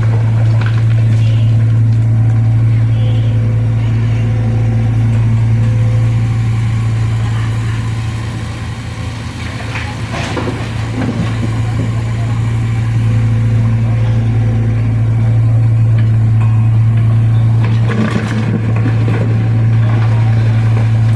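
An excavator's diesel engine running steadily as a loud, low drone. It eases off slightly about eight seconds in and picks back up a few seconds later.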